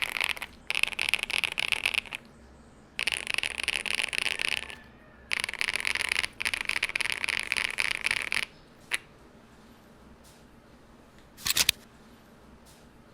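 Rapid typing on a modded MonsGeek M1 V3 mechanical keyboard with factory-lubed Green Fog linear switches, PBT doubleshot keycaps and a foam-filled, flex-cut polycarbonate-plate build, in several fast bursts with short pauses. The typing stops about two-thirds of the way in, followed by one lone keystroke and, a little later, a short louder clatter.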